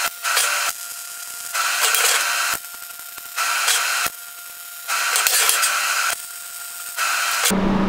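MIG welding a cap onto the end of a steel box section in short runs: five bursts of crackling arc, each about half a second to a second long, with pauses between. Near the end a steady low hum takes over.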